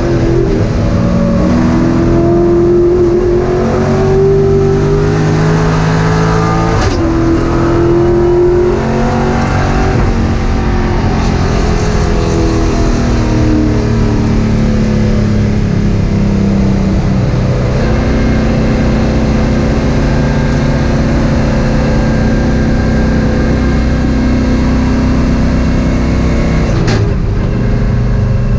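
Race car engine heard from inside the cockpit, its pitch climbing under acceleration over the first ten seconds, with a brief sharp break about seven seconds in. It then falls away and holds at a steady lower pitch through the second half.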